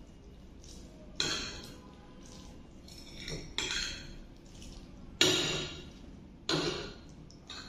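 Metal fork and spoon clinking and scraping against a ceramic plate while tossing noodles. There are about five sharp clinks, the loudest about five seconds in.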